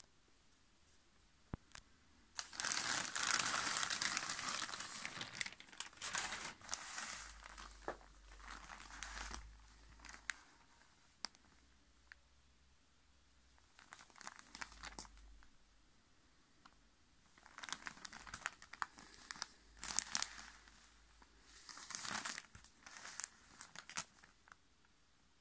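Plastic mailing bag crinkling and tearing as it is opened and a football pulled out of it: a long, loud stretch of rustling starting about two and a half seconds in, then shorter bursts, and more crinkling in bursts near the end.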